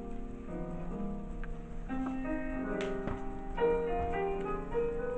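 Background instrumental keyboard music, a melody of held notes over chords, with a short click about three seconds in.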